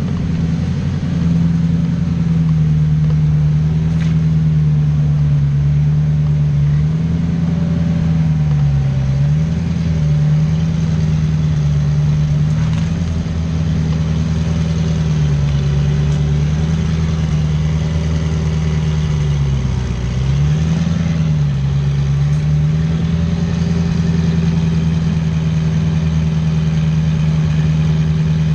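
Off-road 4x4's engine held at steady high revs under load, its pitch dipping briefly about three times before climbing back.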